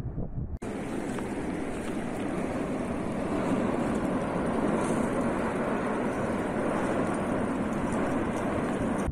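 Steady deep roar of an erupting volcano, the Cumbre Vieja on La Palma, coming in after a brief dropout just over half a second in.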